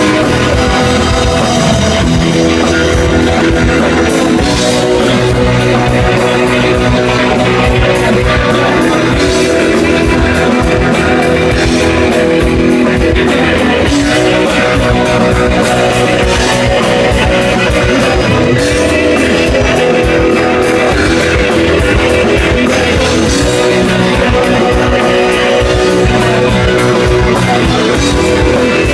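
A rock band playing live: electric guitar, bass and drum kit, loud and continuous.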